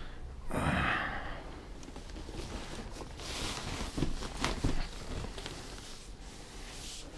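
Low-density polyethylene protective bag around a computer monitor rustling and crinkling as it is handled, with a few light clicks and knocks about four to five seconds in. A breathy exhale about half a second in.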